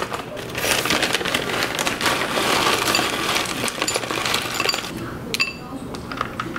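A bag of granola rustling and crinkling as it is handled, then granola clusters, nuts and chocolate pieces pouring and clattering into a ceramic bowl, with a few sharp clinks about five seconds in.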